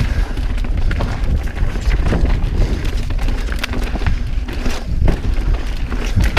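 Mountain bike riding downhill on a rocky dirt trail: a steady low rumble of wind buffeting the microphone and tyres on dirt, with frequent short knocks and rattles as the bike hits rocks.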